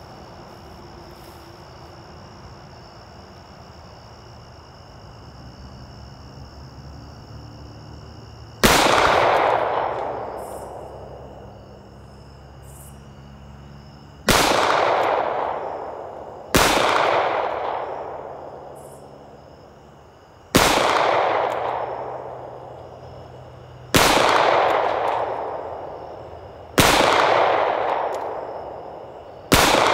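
SIG P220 .45 ACP semi-automatic pistol firing seven single shots, the first about nine seconds in and the rest two to six seconds apart. Each shot rings out in an echo that fades over about two seconds. The pistol cycles through the magazine without a malfunction.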